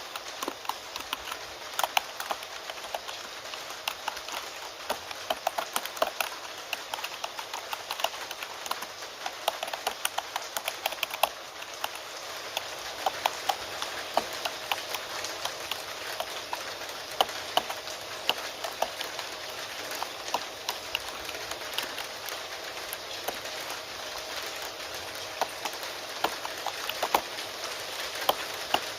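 Irregular keystrokes on a computer keyboard, several clacks a second in uneven runs, over the steady hiss of falling rain.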